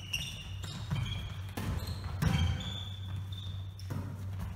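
Volleyball rally in a large sports hall: several sharp slaps of hands and arms hitting the ball, the loudest a little past two seconds in, with short squeaks of shoes on the hall floor, echoing in the hall.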